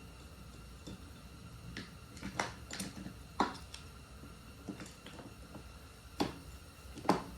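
Scattered light clicks and taps, about eight in all, the sharpest about three and a half seconds in and near the end, as oiled valve buckets are handled and slid into their bores in a CRF450R cylinder head.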